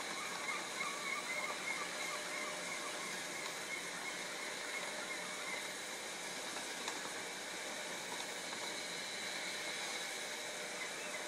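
Model train rolling along the layout track under a steady hiss, with thin squealing tones from the wheels in the first three seconds.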